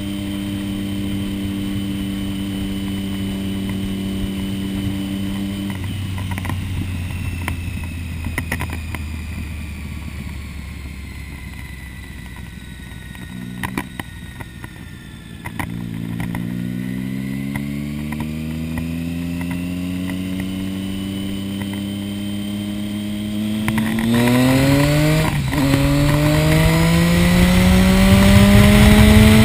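Motorcycle engine heard from the rider's seat. It holds a steady note, then the throttle closes and the pitch falls as the bike slows for a tight corner. It then accelerates out with a steadily rising pitch and shifts up once about five seconds before the end, growing louder as wind noise builds with speed.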